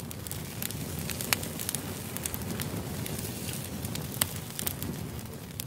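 Wood fire crackling: a steady low rush with many scattered sharp pops.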